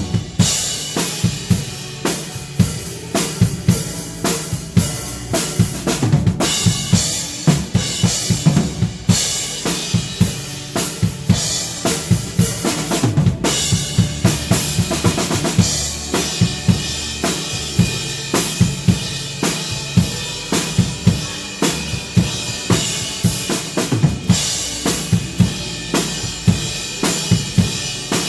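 Drum kit played with a steady beat, bass drum and snare hits under cymbals, along with the music of a praise song. The playing breaks off for a moment twice, about six and thirteen seconds in.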